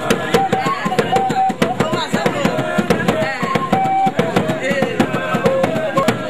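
Live traditional music: dense, fast drumming with end-blown wind instruments playing a melody of short held notes over it.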